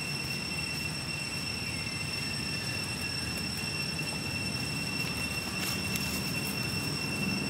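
Outdoor ambience: a steady high-pitched whine that holds one pitch throughout, over a low rumble.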